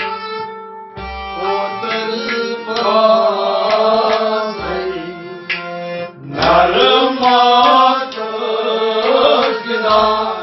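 Kashmiri Sufi devotional song: a man sings over the sustained chords of a harmonium, with a rabab plucked alongside and a second man's voice joining in. Low drum strokes fall every few seconds.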